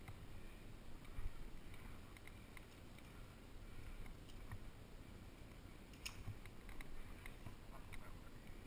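Faint scattered clicks and scuffs from a rock climber's hands and gear on the rock, over a low steady rumble.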